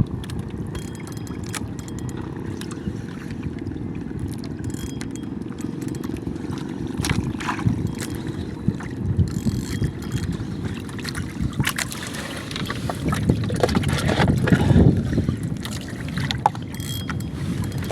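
Small boat (bangka) on open water: a steady low rush of wind and water with scattered knocks against the boat. It swells louder about three quarters of the way through.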